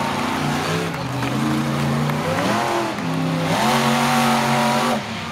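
Monster truck engine revving as it drives across the dirt arena. The revs hold, climb, dip and climb again, then drop off near the end.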